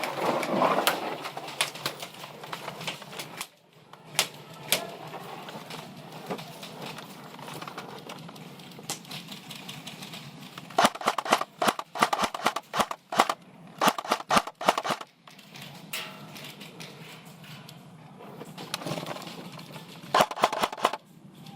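Airsoft guns firing: a few single shots about four seconds in, a long run of quick shots in the middle, and a short burst near the end.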